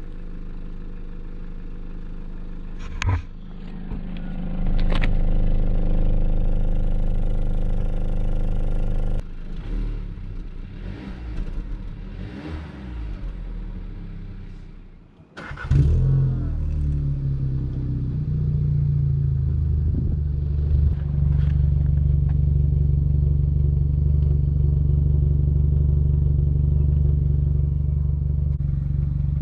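Audi A3 8V's 1.4 TFSI four-cylinder petrol engine running, heard at the tailpipes, first through the standard exhaust with its rear back box, its level rising and falling. About halfway through, after a brief drop, the same engine starts with a sudden burst, now with the back box deleted and the centre resonator kept, and settles into a steady idle.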